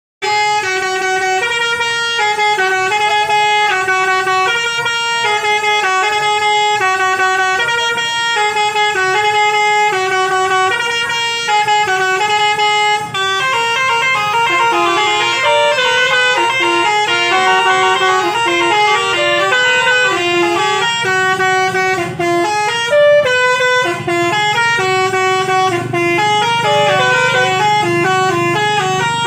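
Basuri musical bus horns playing a tune in stepped notes. The melody gets busier about halfway through, and a low rumble joins near the end.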